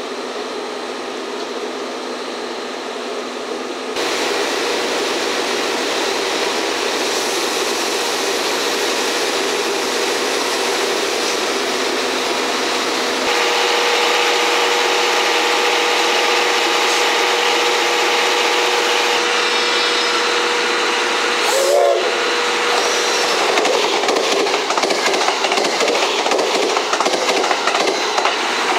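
Test train rolling slowly through the station: an EF65 electric locomotive hauling 12-series coaches, with a D51 steam locomotive coupled tender-first at the rear hissing steam, its wheels running over the rails under a steady hum. A sharp knock about three-quarters of the way through, then uneven rattling as another train passes close by.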